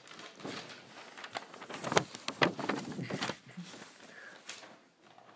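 Close-up handling noise: rustling with a run of clicks and knocks, loudest about two to three seconds in, then dying away.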